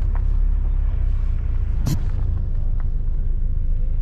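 Low, steady rumble in the cabin of a Ford Mustang EcoBoost moving slowly, with one sharp click about two seconds in.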